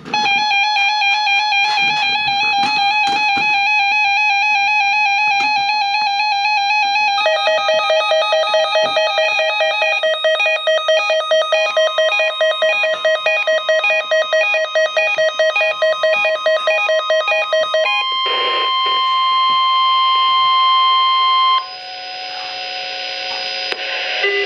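Electronic music with stacked buzzy notes pulsing several times a second, changing pitch about a third of the way in. Near the end the music gives way to a single loud steady tone lasting about three and a half seconds, the weather-radio warning alarm tone. It cuts off sharply to a quieter steady radio hiss with faint tones.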